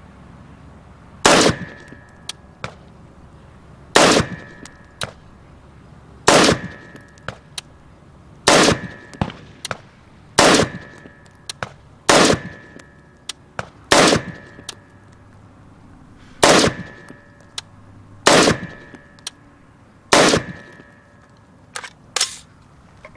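AR-15 rifle firing 5.56 NATO rounds, about ten single shots spaced roughly two seconds apart, each followed by a few small sharp clicks. Two quieter pops come close together near the end.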